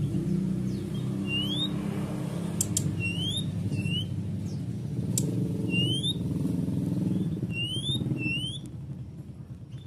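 Brown-chested jungle flycatcher (SRDC) in breeding condition giving short rising whistled calls, about one a second and sometimes in pairs. A low engine-like hum runs underneath and fades near the end, with a few sharp clicks.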